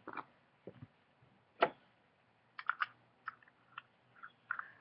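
Scattered small clicks and taps from handling a vape atomizer's parts and tools: one louder click about one and a half seconds in and a quick run of three or four clicks near the middle.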